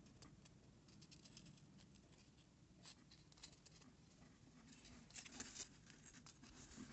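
Faint handling noises: carved foam lantern models rubbed and turned in the fingers and set down on a metal table, a few light clicks and scratches, busiest about five seconds in.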